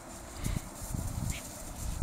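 Footsteps in deep snow: an uneven run of dull, low thumps beginning about half a second in.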